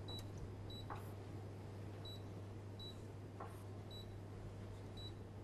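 Touch controls of a glass-top cooktop beeping as the burner is switched on and turned up: about six short, high beeps at uneven intervals, over a steady low hum.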